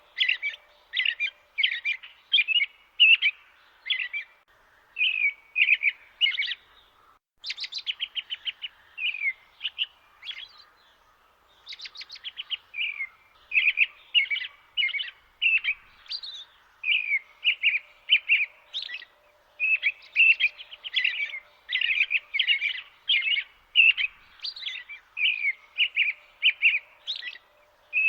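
Songbirds chirping and singing: quick runs of short, bright notes repeated two or three times a second, with a short lull a little before the middle.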